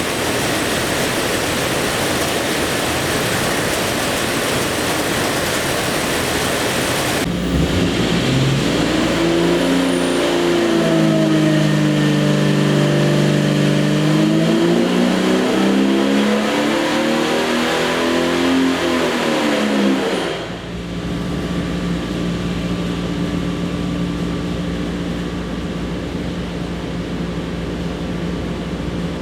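Jeep 4.6 stroker inline-six running on an engine dyno. For the first seven seconds it makes a loud, even noise. Then the engine note sweeps up and down in pitch through a pull. About twenty seconds in the revs drop back, and it settles to a steady lower run.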